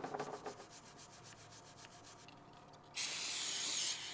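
Wire brush scrubbing the lead-filled seam of a cast-iron flywheel and crankshaft in quick strokes that fade away over the first two seconds. About three seconds in, an aerosol spray can starts to hiss steadily, louder than the brushing.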